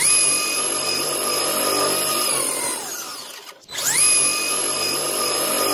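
Team Associated DR10 RC drag car doing a burnout on a 3S LiPo: its brushless motor and gears whine, jumping straight up to a steady high pitch over the hiss of spinning tyres. The whine winds down after about two and a half seconds, then revs up again to the same pitch about four seconds in.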